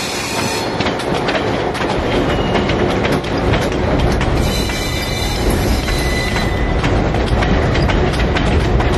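Passenger train cars rolling around a curve: a steady rumble of wheels on the rails with quick clicks over the rail joints, and high flange squeal from the wheels on the curve, once at the very start and again for about two seconds in the middle.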